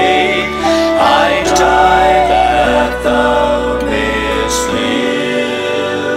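A hymn sung with instrumental accompaniment as its final line is held out. The singing and the low bass stop about three-quarters of the way through, leaving the accompaniment sustaining.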